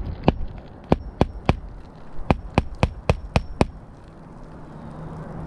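Hammer striking roofing nails into an asphalt shingle: about ten sharp blows in two runs, four spaced ones then six quicker ones.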